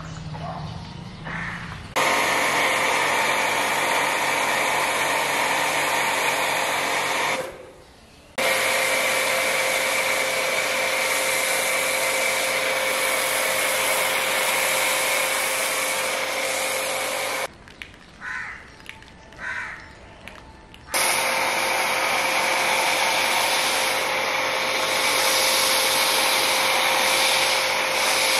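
Pressure washer spraying snow foam through its lance: a steady hiss of spray over a constant pump-motor hum. It cuts out briefly about seven seconds in and again for a few seconds a little past halfway, then starts again.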